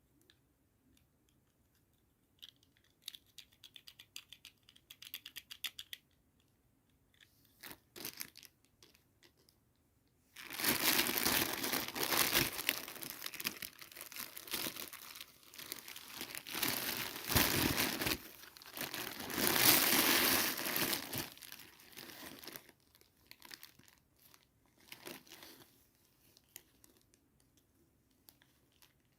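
Packaging being handled and torn open. A run of light, rapid clicks a few seconds in is followed by about twelve seconds of loud crinkling and tearing, then a few scattered light clicks.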